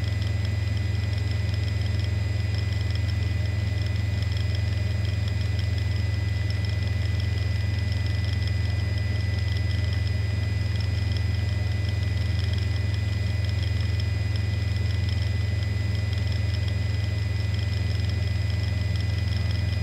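Steady, unchanging drone of a helicopter's engine and rotor, a low hum with a faint regular beat and a thin high whine on top.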